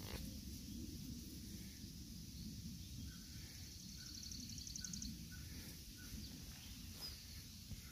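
Faint outdoor ambience: a low rumble of wind on the microphone. About four seconds in comes a brief, rapid, high chirping trill, and a few soft chirps sound around it.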